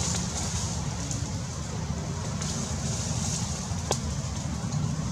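Steady outdoor background noise: a low rumble with a high hiss over it, and one sharp click about four seconds in.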